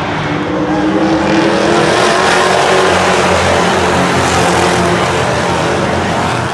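A pack of oval-track stock cars racing past, their engines together loud and continuous. The sound grows louder about a second in and eases slightly near the end.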